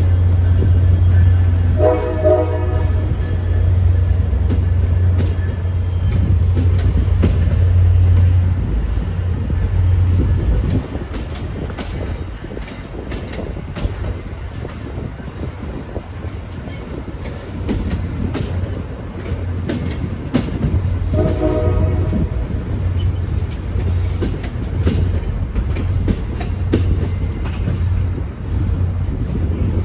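Train horn sounding two short blasts, one a couple of seconds in and another about two-thirds of the way through, over the rumble of a passing train. A deep drone dies away about a third of the way in, and the wheels click over rail joints.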